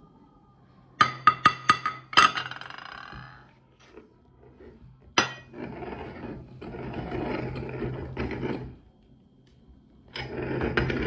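Metal parts of a hand-cranked meat grinder, its retaining ring and perforated cutting plate, set down on a ceramic plate: a quick run of ringing clinks, with one more sharp clink a few seconds later. Then rough scraping and rubbing of metal against the packed ground chocolate, in two stretches.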